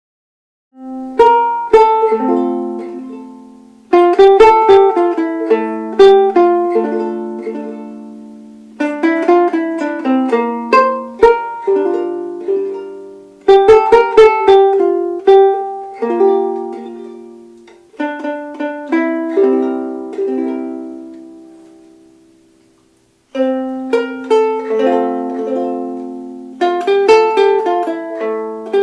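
Soprano ukulele played solo: plucked melody notes and chords that ring and fade in short phrases. Playing starts about a second in and stops briefly about three-quarters of the way through before picking up again.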